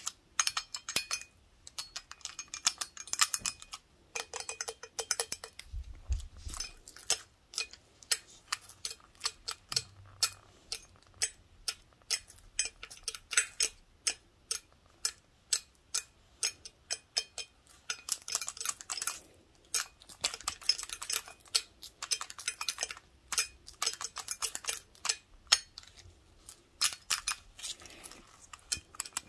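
Wooden toothpick tips tapping rapidly and irregularly on a large glass beer stein, with short glassy pings. The tapping comes in flurries, thinner in the middle and busier again later.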